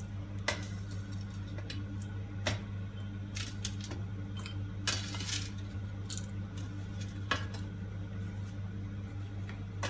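Metal pots and utensils clinking and knocking now and then, with a few slightly longer scrapes, over a steady low hum.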